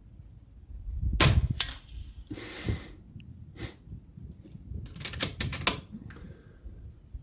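A single shot from a BRK Ghost sub-12 ft-lb PCP air rifle about a second in: a sharp crack with a short ring after it. A brief rustle follows, then a quick run of metallic clicks about five seconds in as the rifle's action is worked for the next shot.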